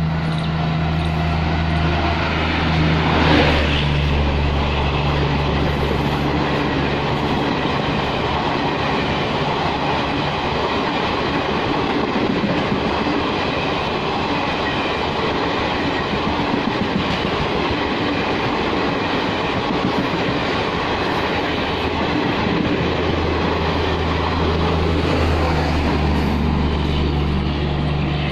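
Indian Railways Garib Rath express, hauled by a WAP-1 electric locomotive, passing through at speed. It is loudest about three seconds in as the locomotive goes by, then a long rake of coaches rattles and clatters over the track. The clatter thins out near the end, leaving a low hum.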